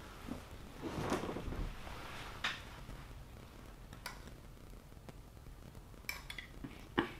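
Metal fork clicking and scraping against a clam half-shell: a few scattered clinks, the loudest near the end.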